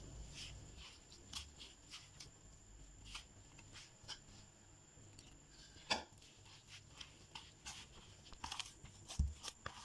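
A hand mixing and squeezing flour and water into a soft dough in a bowl: faint, irregular rustles and clicks, with a sharper click about six seconds in and a soft thump near the end.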